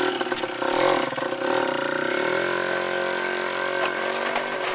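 Motorbike engine running, its pitch wavering with the throttle for about two seconds and then settling into a steady, even run.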